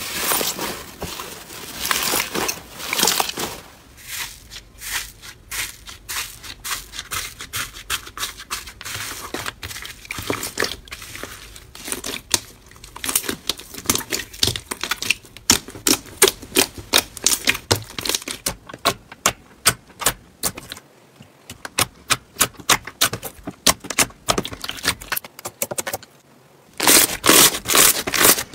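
Hands squishing, kneading and stretching slime, giving a run of wet crackling clicks and pops. The crackling comes thickest near the start and again near the end, with short lulls about three-quarters through.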